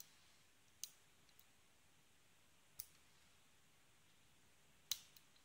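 Faint, sparse metallic clicks of a pick working the pins inside a Paclock 100A padlock held under tension: a few sharp, isolated ticks a second or two apart, the loudest near the end.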